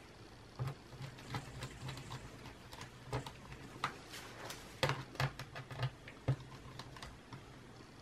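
Irregular small clicks and taps of hands handling the parts inside an open Dell Latitude E5550 laptop's underside, busiest and loudest a little past the middle and dying away about six and a half seconds in.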